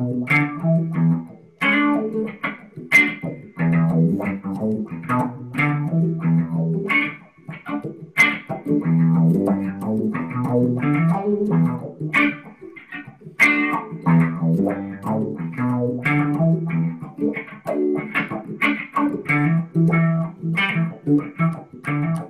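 Electric guitar and electric bass playing together: short plucked guitar chords and single-note licks over a bass line, in a choppy rhythm.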